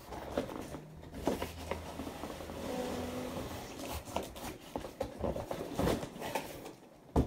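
Handling noises from a boxed toy being carried in and set on a table: scattered rustles and light taps, then a sharp knock just before the end. A low steady hum runs from about a second in until about halfway.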